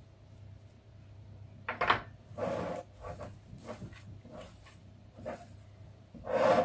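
Hands working dough in a bowl, with a wooden spoon stirring and then being set down on the worktop with a sharp knock about two seconds in. Soft kneading and scraping sounds follow, then another clatter near the end.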